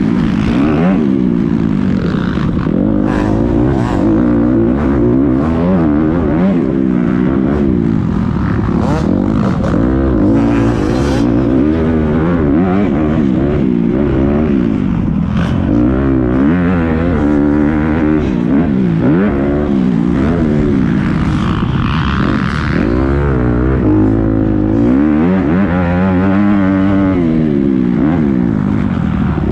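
Motocross dirt bike engine ridden hard around a track, heard close from the bike: its pitch climbs and drops again and again as the throttle is opened and closed and the gears change, with the odd knock from the bumps.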